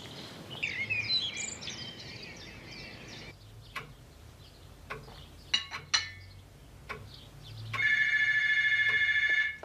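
Birds chirping for about three seconds, then a few light clicks as chess pieces and a cup are set down on a table. About eight seconds in, a telephone bell rings loudly for nearly two seconds.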